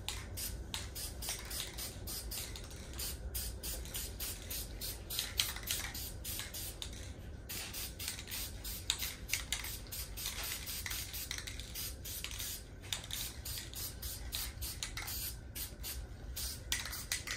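Aerosol spray paint can hissing in many short bursts as light coats of paint are sprayed onto a metal part.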